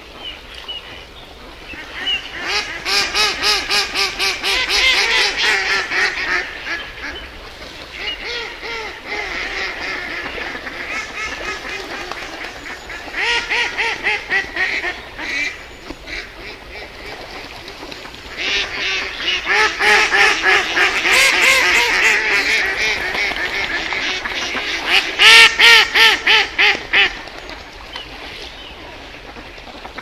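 Ducks quacking in fast runs of calls, several a second, in three loud bouts with softer calling in between; the loudest run comes near the end.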